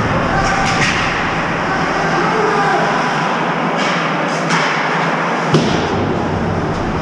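Ice hockey game noise from close behind the net over a steady arena hum: a few sharp stick and puck clicks, and a loud knock about five and a half seconds in as the goalie drops to block a shot.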